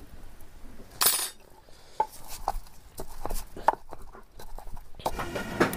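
Kitchenware handled by hand: a string of light clinks and knocks, with a short rush of scraping noise about a second in.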